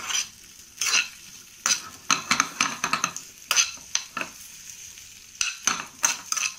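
A steel spoon scraping and stirring chopped onions, green chillies and capsicum around a frying pan, in short irregular strokes over a steady sizzle of hot oil.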